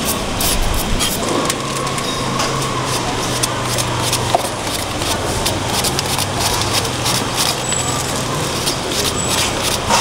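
Busy street-market din: background voices and a constant run of small clicks and clatter, over a steady low hum that sets in about a second and a half in and fades near the end.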